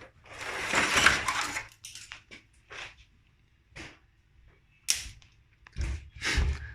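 Handling noise from parts being moved about: a crackling, crunching rustle lasting about a second and a half, then several separate sharp clicks and knocks, with heavier knocks near the end.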